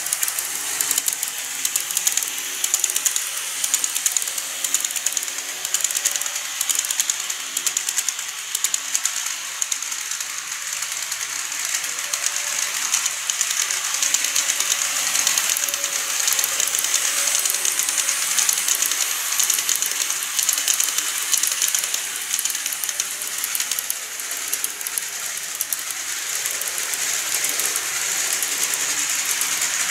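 Model E233-series electric trains running on layout track: a continuous fast clicking rattle of wheels on rails, with a faint motor hum underneath.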